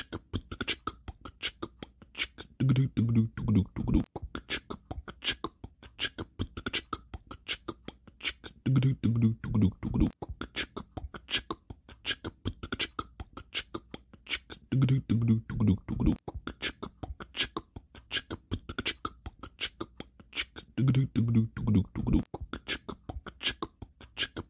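Outro music: a looped beatbox-style vocal-percussion rhythm of fast, even clicks. A short low pitched phrase of about a second comes back roughly every six seconds, four times.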